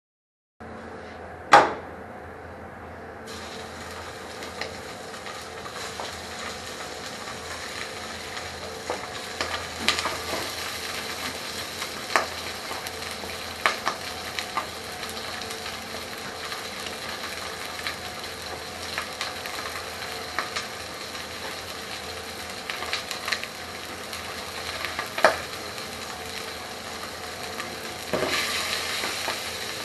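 Chicken pieces sizzling steadily as they brown in a hot frying pan, with scattered clicks and knocks of a utensil against the pan. There is a sharp knock about a second and a half in, and the sizzle grows louder near the end.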